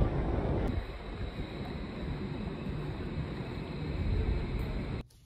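Wind rumbling on the microphone over an outdoor street background. It steps down in level about a second in and cuts off abruptly near the end.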